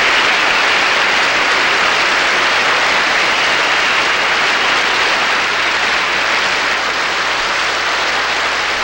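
A large audience applauding, a loud, steady mass of clapping that eases off slightly near the end.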